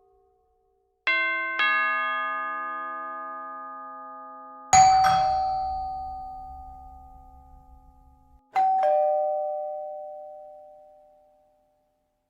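Bell-like chime tones: two notes struck in quick succession, then two more single strikes a few seconds apart. Each rings on and fades slowly.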